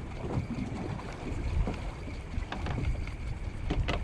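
Strong wind rumbling on the microphone aboard a drifting boat, with a few short knocks in the second half.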